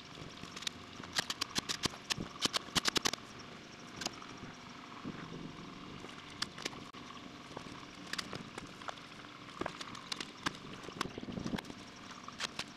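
Clusters of quick, sharp knocks from nailing plywood sheathing onto a shed's wooden wall studs, several volleys with short gaps between.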